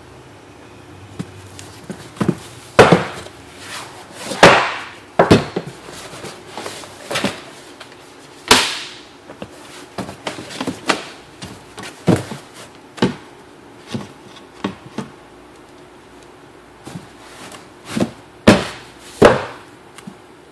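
Long cardboard boxes of tint film and a film roll being handled on a work table: irregular knocks, bumps and short sliding scrapes as they are lifted, set down and shifted.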